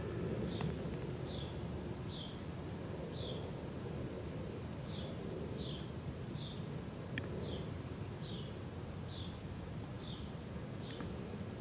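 A small bird calling over and over, a dozen or so short high down-slurred notes about one to two a second with a brief pause in the middle, over a steady low background noise.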